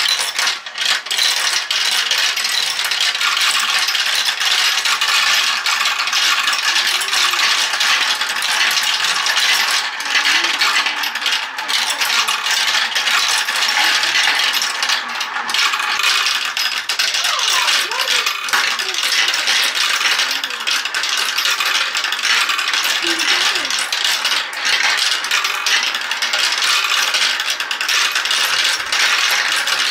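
Marbles rolling and clattering continuously through a Galt plastic marble run: a dense, steady rattle of many small clicks as they roll along the chutes, drop through the tubes and knock against the plastic parts.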